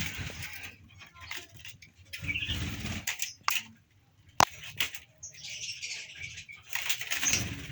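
Rustling and fluttering around a long-tailed shrike (cendet) nest, with faint short chirps from newly hatched chicks and a few sharp knocks, the loudest about halfway through.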